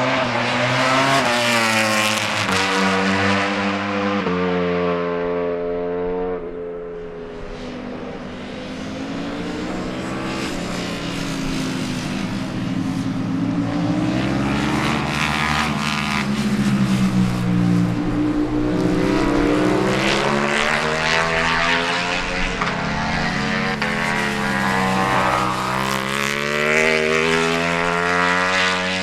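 Ducati Panigale V4 superbikes' V4 engines at racing speed on track. Early on the engine note climbs and drops sharply twice as the rider shifts up through the gears. After a quieter moment, more bikes follow, their engine notes rising and falling as they pass.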